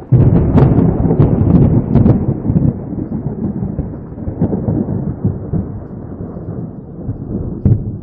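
A loud thunderclap that breaks in suddenly with sharp crackling, then rolls on as a low rumble that slowly fades, with one more crack near the end.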